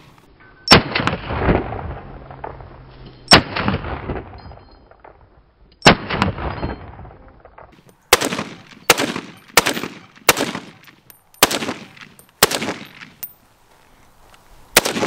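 About ten shots from a NEMO AR-10 semi-automatic .308 rifle. Three single shots a few seconds apart, each trailing a long rolling echo, are followed by a quicker string of seven shots, most less than a second apart.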